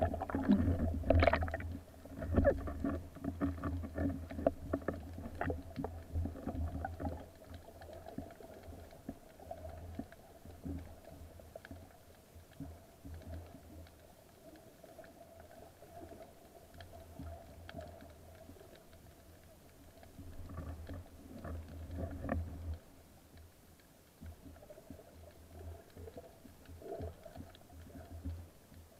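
Underwater sound picked up by a camera mounted on a speargun: a low rumble and a steady hum with scattered clicks and knocks. It is louder in the first two seconds and again around twenty to twenty-three seconds in.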